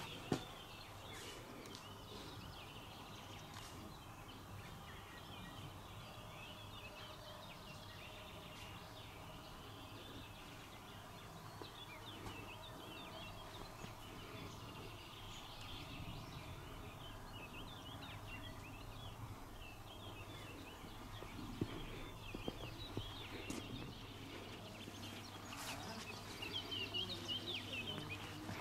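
Faint birdsong, many short chirps and calls, over a steady low hum, with a few light clicks about a second in and again a little past twenty seconds.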